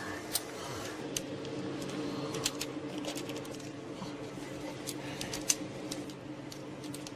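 Irregular clicks and clacks of a film projector's parts and controls being handled, over a steady low hum.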